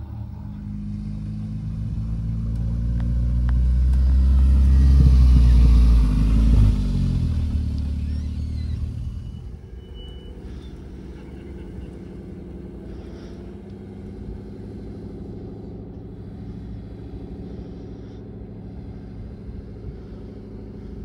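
A sports car's engine revving as it drives past, growing louder to a peak about five to six seconds in and then fading away. After that a quieter car engine keeps running at low revs.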